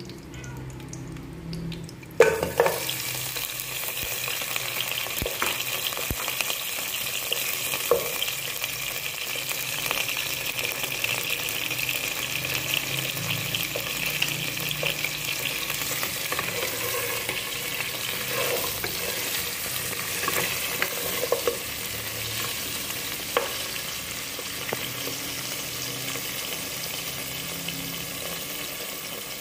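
Mutton pieces sizzling in hot oil in a pot. The sizzle starts suddenly about two seconds in and stays steady, with a few sharp knocks along the way.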